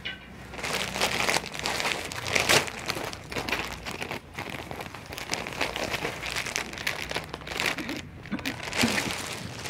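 Clear plastic packaging crinkling as a packed cotton suit is handled, in irregular rustling bursts.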